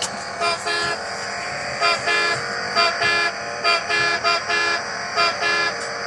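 Electronic horn of a plastic toy driving dashboard beeping in quick double toots, about six pairs, each time the steering-wheel horn is pressed, over a steady electronic tone from the toy.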